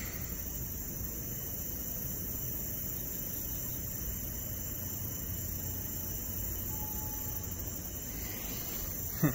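Crickets chirring steadily in the night, over a low even hum. Near the end there is one brief, louder sound falling quickly in pitch.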